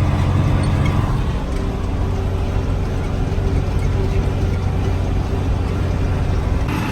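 A vehicle engine running steadily at an even speed, a constant low drone.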